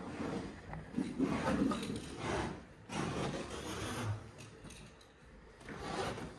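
Irregular rubbing and scuffing of carpet and underlay being handled and pressed into place, a string of short scrapes that come and go.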